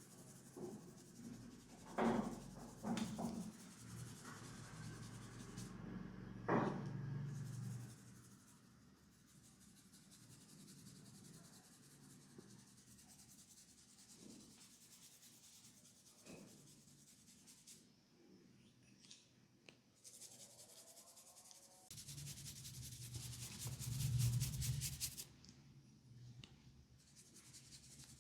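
Hands rubbing and massaging a person's scalp and hair, a soft scratchy friction sound. There are a few short knocks in the first seven seconds, and a louder, faster stretch of rubbing about 22 seconds in.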